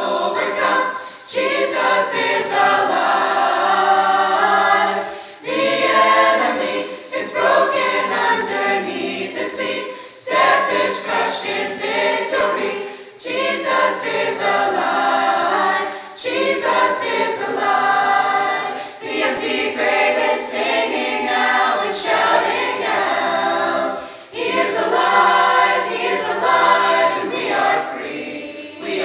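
Mixed choir of teenage voices singing in harmony, phrase after phrase, with short breaks for breath between phrases.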